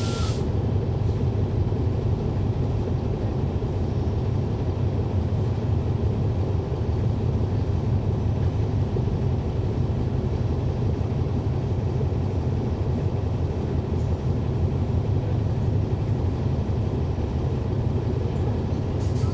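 Cabin sound aboard a 2011 NABI 40-SFW transit bus: its Cummins ISL9 inline-six diesel running with a steady low rumble.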